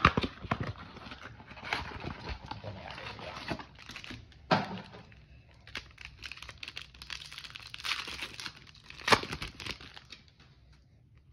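A cardboard blaster box is torn open, then foil-wrapped trading card packs are handled, crinkling and ripping, with several sharp snaps; it dies away near the end.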